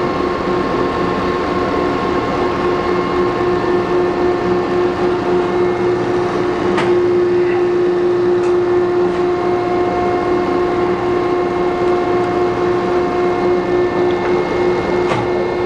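1981 Landis 1R universal cylindrical grinder running with its hydraulic pump up to pressure and the wheel spindle turning: a loud, steady hum with a strong constant tone. A few faint clicks come about 7 seconds in and near the end.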